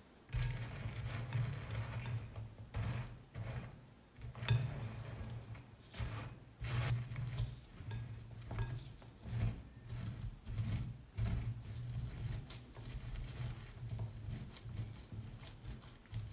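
Silicone spatula stirring biscuit pieces into melted chocolate in a glass bowl: irregular scraping and knocks against the glass, over a low rumble that swells and fades with each stroke.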